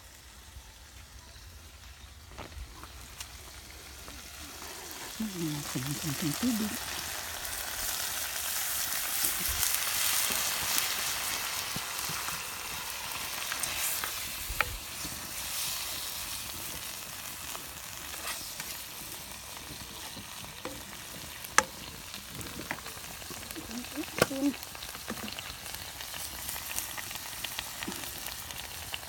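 Green beans, onion and mushrooms sizzling in oil in a frying pan over a wood fire, stirred with a spatula. The sizzle swells over the first several seconds and then holds steady, with a few sharp clicks of the spatula against the pan.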